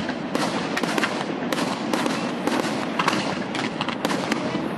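Aerial fireworks display: shells bursting in quick succession, about two sharp bangs a second, over a continuous noise with no break.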